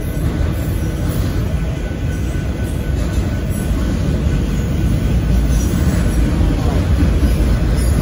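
Kansas City Southern de México freight train of autorack cars rolling past close by: a steady, loud, low rumble of wheels on rail.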